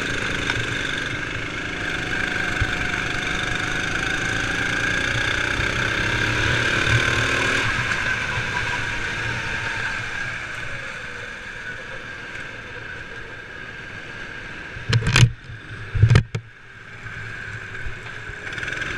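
Sodi RX7 rental kart's engine heard onboard, running at racing speed with its pitch rising and falling, then easing off and dropping quieter about eight seconds in. Two loud short thumps near the end, about a second apart.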